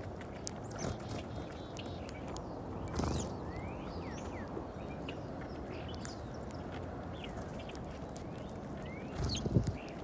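Scattered short chirps from small birds feeding on seed at ground level, over a steady low background noise. A few dull knocks and thumps break in: one about three seconds in, and the loudest cluster near the end.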